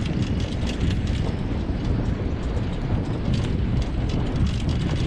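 A dog-drawn wheeled rig rolling fast over a rough dirt forest trail: a steady rumble with frequent rattling clicks from the rig.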